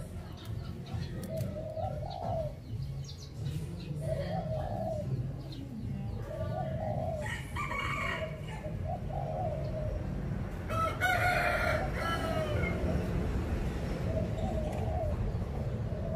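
Spotted doves cooing in short, low notes repeated every second or two, while a rooster crows twice; the louder crow comes about eleven seconds in.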